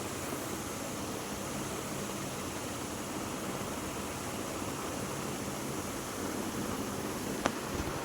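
Steady hiss-like noise with a faint low hum underneath, and a single sharp click about seven and a half seconds in.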